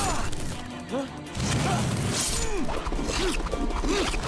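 Cartoon soundtrack music mixed with action sound effects, with a sudden loud hit about a second and a half in.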